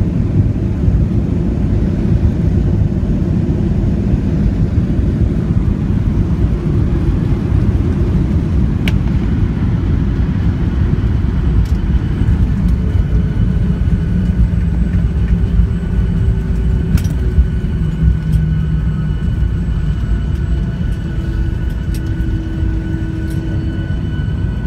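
Boeing 737 airliner heard from inside the passenger cabin: a loud, steady low rumble of engine and airflow noise, with faint steady whining tones joining about halfway through.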